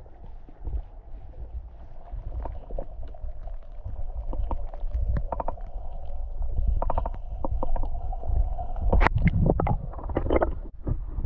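Water heard underwater through a submerged GoPro Hero 9's microphone: a muffled low rumble of stream current with scattered clicks and ticks, growing louder in the second half, with one sharp click about nine seconds in.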